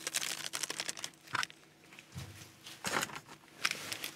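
Light handling noises of food packaging: a quick run of crinkling clicks, then a few separate rustles and soft knocks, one of them a dull thump about two seconds in.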